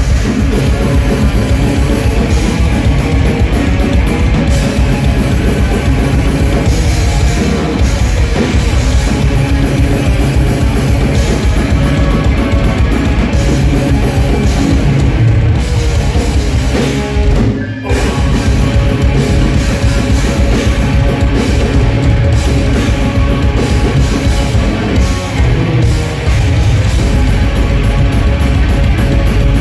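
Blackened speed metal band playing live: distorted electric guitars, bass and a drum kit, loud and continuous, with a brief break in the music about 18 seconds in.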